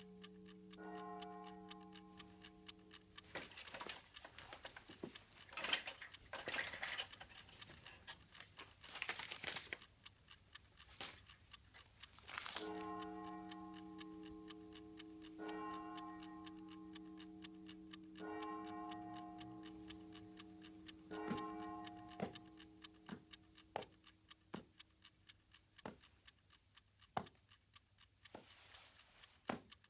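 Mechanical wind-up alarm clock ticking steadily. Held, bell-like tones sound, break off and return several times over the ticking, with a few seconds of scratchy noise between them.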